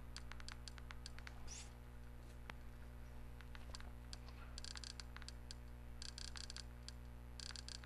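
Faint clicking of keys or buttons pressed to scroll through a menu. Single presses come first, then three quick runs of rapid presses in the second half, over a steady low hum.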